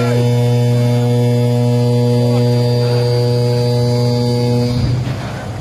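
Ship's horn sounding one long steady blast at a single low pitch, which cuts off about five seconds in.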